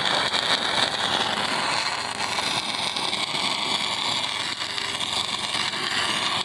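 Stick-welding arc crackling and sizzling steadily as a 6013 electrode burns along an overhead 4G plate joint.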